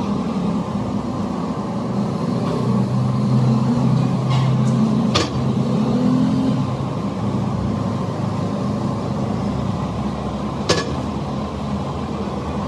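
Steady hum of factory machinery with a low drone that swells for a few seconds in the middle. Sharp metal clanks cut through it, once about five seconds in and again near eleven seconds.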